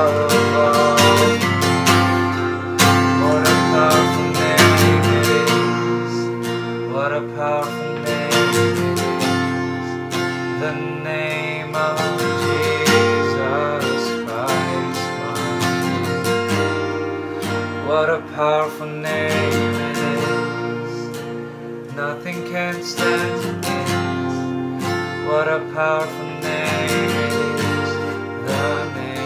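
Music: an acoustic guitar strummed with a singing voice.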